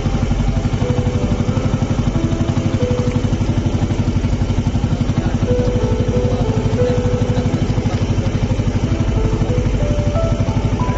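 Small boat engine running steadily, a rapid even chugging.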